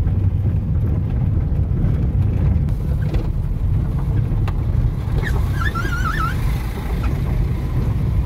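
Steady low rumble of a car rolling slowly over a cobblestone road, heard from inside the cabin, with a few light clicks. About five seconds in, a brief warbling chirp sounds for about a second.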